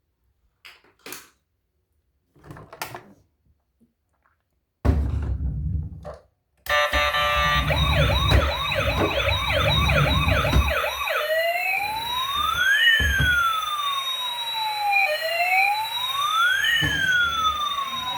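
Electronic toy emergency-vehicle siren switching on about seven seconds in: a fast warbling yelp for about four seconds, then a slow wail rising and falling. Before it come a few faint clicks and a short low rumble.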